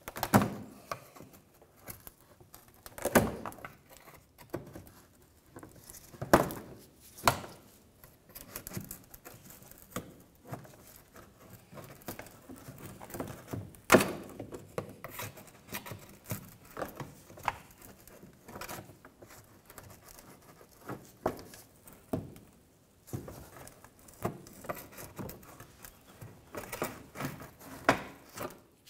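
Plastic push-in retaining clips being pried out of a wheel-well splash shield with a plastic trim tool, and the plastic shield being handled: an irregular run of sharp clicks and knocks with rustling between them, a few louder snaps scattered through.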